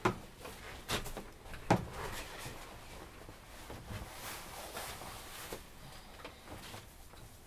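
Cloth rustling as a blue work coat is pulled on over the head, after three sharp knocks in the first two seconds.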